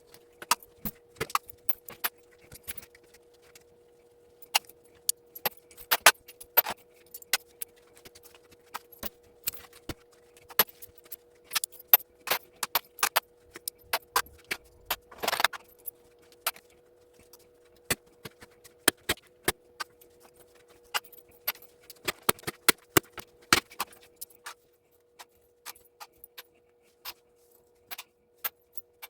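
Small brass parts from stripped electrical plugs clinking as they are handled and dropped, in irregular sharp clicks, with a longer scraping rattle about fifteen seconds in. A faint steady hum runs underneath.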